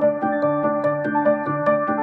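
Background music: quick, evenly spaced notes, about five a second, over held chords.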